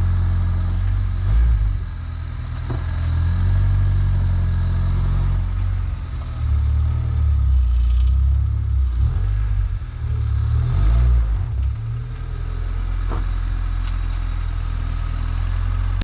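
A car engine running, a steady low hum that wavers and shifts in pitch a few times.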